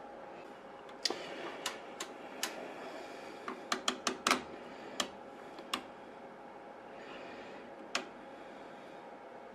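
Front-panel switches and knobs of a Gould OS245A oscilloscope clicking as it is switched over from channel 2 to channel 1. There are about a dozen sharp clicks, most bunched together around the middle, over a steady hum.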